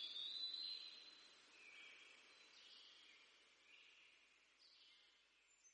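Faint bird song: a string of high, clear held notes, each lasting about half a second to a second and stepping from one pitch to the next, over quiet outdoor ambience.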